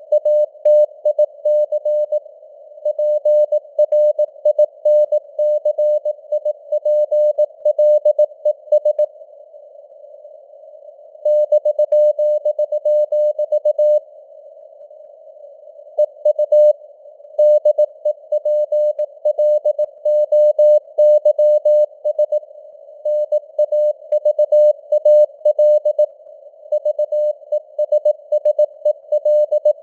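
Morse code (CW) sent at 18 words per minute as one beep tone keyed rapidly on and off, in a narrow band of simulated radio receiver noise. The sending stops twice for about two seconds, leaving only the hiss, roughly a third of the way in and again near the middle.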